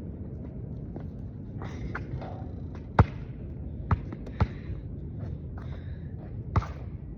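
A basketball bouncing on a hard court: four sharp, uneven bounces, the loudest about three seconds in, two more close together around four seconds, and one near the end, over a steady low background rumble.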